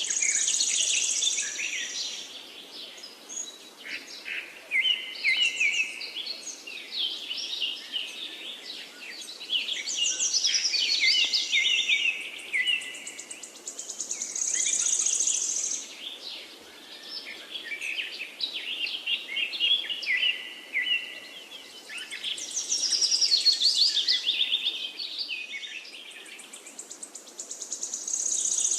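Several birds chirping and twittering at once, with quick overlapping calls and a buzzy high trill that comes back every few seconds.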